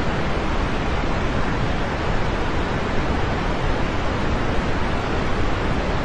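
Steady rain falling, a continuous even hiss without distinct drops or thunder.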